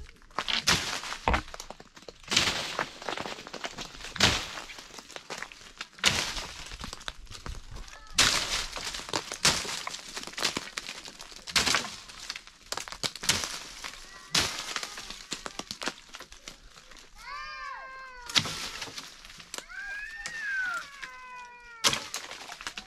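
Oak branches and leaves rustling and snapping in repeated bursts as a man climbs and shakes the tree to bring down acorns. Near the end come a few wavering, high-pitched animal calls.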